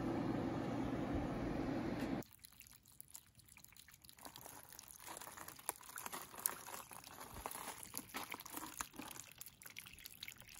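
A steady low rushing noise for about two seconds that cuts off abruptly, then faint, irregular dripping and trickling of water from a garden hose into a potted agave's soil.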